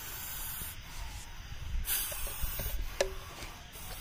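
Young Russell's viper hissing in repeated breaths, each hiss about half a second to a second long: a defensive warning. A light tap comes about three seconds in.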